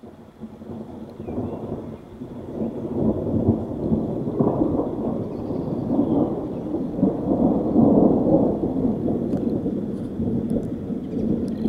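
Long rolling thunder rumble that builds over the first couple of seconds and keeps going in uneven swells, loudest about eight seconds in.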